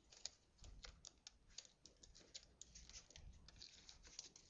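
Faint, irregular ticking and crinkling of paper and sticky tape being handled and pressed down.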